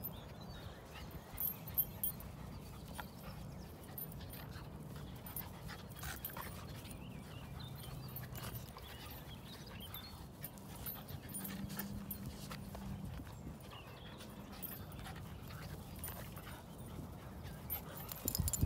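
Two dogs, a Staffordshire bull terrier–Rhodesian ridgeback cross and a cockapoo puppy, play-fighting: panting and low play growls, with a few sharp clicks about two seconds in.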